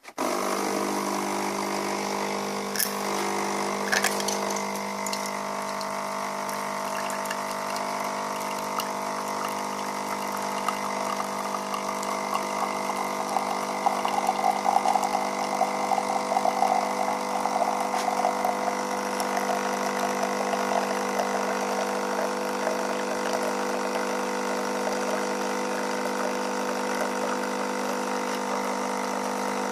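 Dolce Gusto capsule coffee machine brewing: its pump starts suddenly and runs with a steady hum as it pushes hot water through the capsule. There are two clicks a few seconds in, and the liquid sound grows louder and grainier in the middle.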